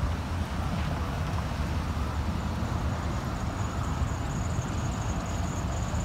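Road traffic passing over a railroad grade crossing: cars and pickup trucks driving by one after another, a steady rumble of engines and tires. A faint high-pitched whine comes in about halfway through.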